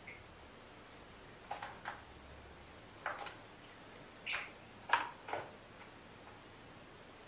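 European starling fledgling pecking at food, making a string of light taps and clicks, about seven spread over a few seconds.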